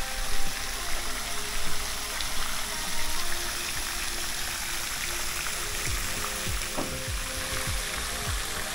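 Pond fountain spraying water up and splashing back onto the pond surface, a steady splashing.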